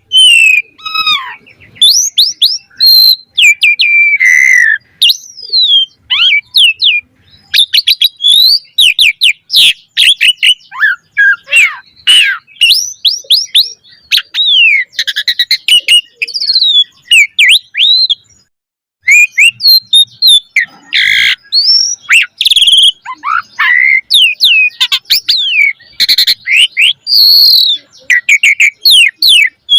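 Asian pied starling (jalak suren) singing non-stop in full voice, a rapid medley of clear whistles, rising and falling glides and harsh chattering notes. Its song is packed with mimicked phrases (isian). The song breaks off briefly about 18 seconds in.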